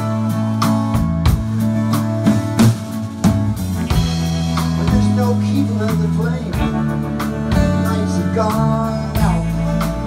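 Live rock band playing loudly: electric guitar over bass and a drum kit, with steady drum hits and bent guitar notes.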